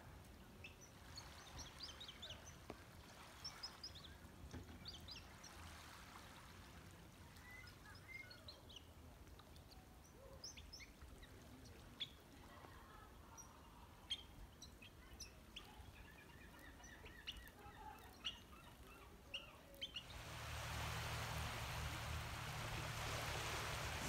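Small shorebirds, sandpipers feeding on a tidal flat, giving many short, high chirps scattered over the first twenty seconds. After that, a louder steady rushing noise sets in and holds.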